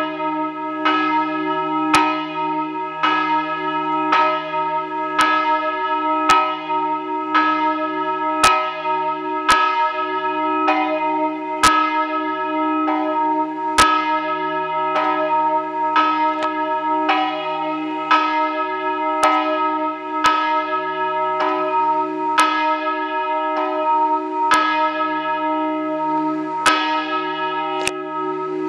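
The largest bell of a three-bell E-flat peal, cast by G. B. De Poli in 1922, swung in the Friulian style. Its clapper strikes about once a second, each blow adding to a long ringing hum that never dies between strokes.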